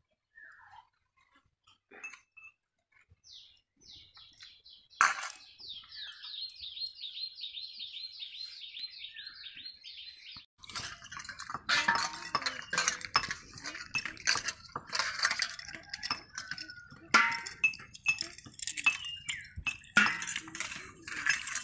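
Snails clinking and scraping against a steel bowl as they are rubbed clean by hand in water, through the second half. Before that come scattered clicks, one sharp crack, and a high, fast trill repeating for several seconds.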